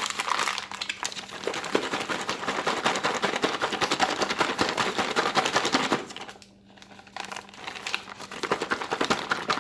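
Zip-top ration drink mix pouch filled with cold water and vanilla drink mix being shaken vigorously: a fast, even crinkling rattle of the pouch. It stops briefly about six seconds in, then starts again.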